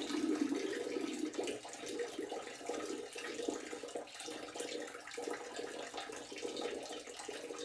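A man urinating into a toilet: a long, steady stream of liquid splashing into the bowl water, easing off a little toward the end.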